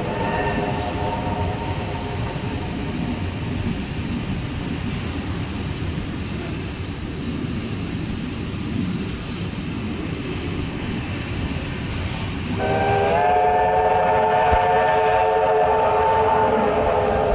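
Train running along the track, heard from on board, with a steady low rumble. A held chord of several steady notes from the locomotive fades out in the first second. A louder one starts abruptly about twelve and a half seconds in and is held to the end.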